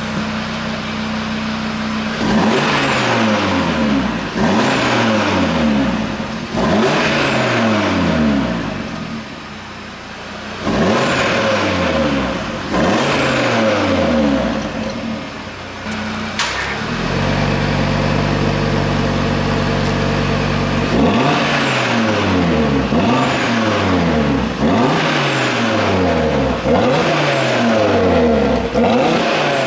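Cupra Formentor VZ5's turbocharged 2.5-litre five-cylinder revving in short blips through its exhaust, about one every two seconds, each dropping back toward idle. In the middle it holds at raised revs for a few seconds before the blips resume.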